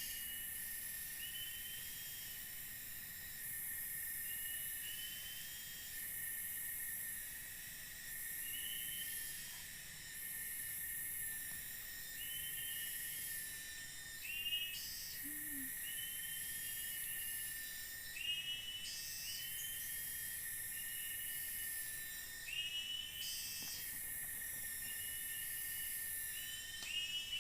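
Forest insects: a steady high drone with short rising chirping calls repeated every second or two, and a few brief louder rasps.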